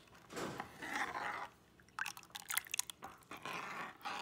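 Metal ladle stirring thin, watery curry gravy in a pan: a few swishing, sloshing strokes about a second each, with light clinks of the ladle against the pan around two seconds in.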